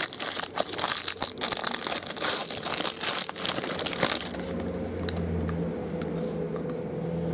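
Trading-card pack wrapper crinkling and tearing as it is opened, for about four seconds, followed by a steady low hum.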